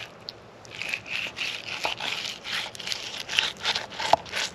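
Fillet knife slicing through a mangrove snapper: a quick run of short scraping strokes as the blade rasps through flesh and scales and against the table.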